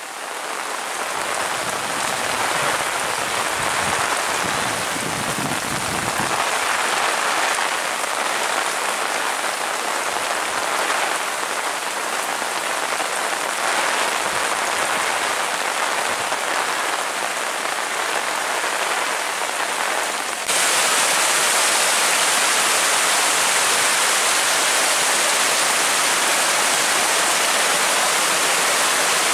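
Heavy rain falling on water and wet ground, a steady hiss. About two-thirds of the way through it cuts abruptly to a louder, brighter, steady rush of muddy floodwater torrenting down a channel.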